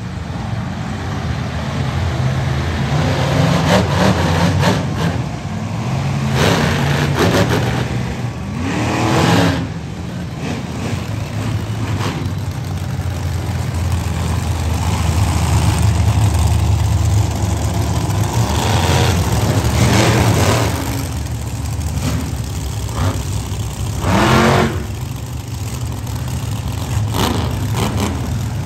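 Monster truck engines running with a steady low drone, revved up sharply about five times, the revs rising in pitch.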